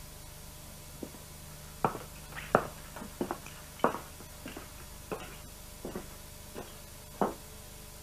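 A person moving about and handling things: about ten irregular knocks and taps, the loudest near the middle, over a steady low hum.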